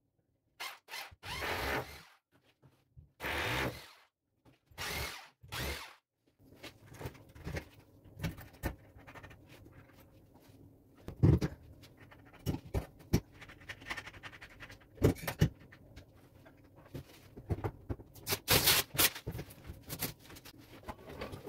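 Corded electric drill boring into ceramic wall tile in several short bursts of about a second each. Scattered knocks and clicks of hand work at the wall follow.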